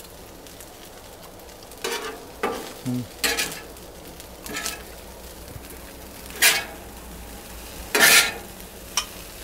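Metal spatula scraping across the steel top of a Blackstone griddle in about six short, separate strokes, over a faint steady sizzle of chicken and rice frying.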